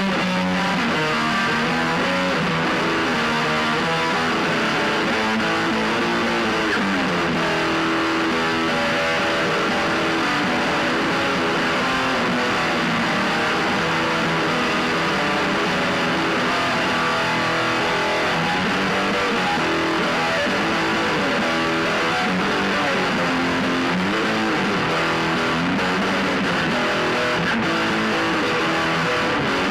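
Noise/drone music: a dense, unbroken wall of distorted sound at constant loudness, with slowly shifting low droning tones underneath.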